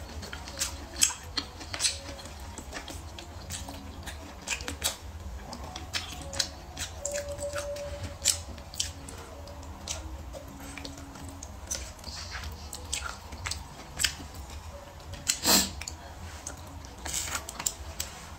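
Close-up chewing and biting of braised pork ribs and trotter, with wet mouth smacks and clicks at an irregular pace. One louder smack comes about three-quarters of the way through.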